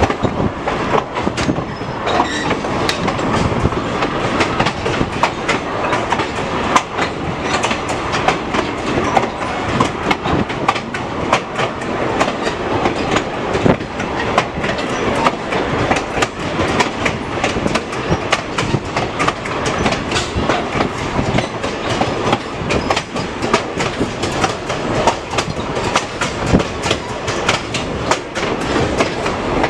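Heard from aboard a moving train: the railroad car's wheels clattering steadily over the rails, with a continuous rumble and rattle of the car.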